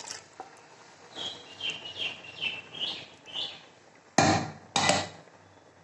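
A run of about five short, high chirps, then two sharp knocks about half a second apart, the loudest sounds here.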